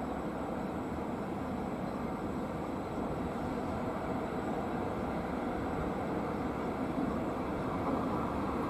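Siemens ES 64 F4 (Class 189) electric locomotive hauling a freight train toward the platform: a steady rumble of the train on the track that grows slightly louder as it approaches.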